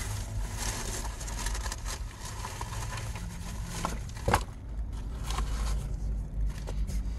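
Rustling and scraping as a packet of blackout curtains is handled close to the microphone, with one sharp click about four seconds in, over a steady low hum.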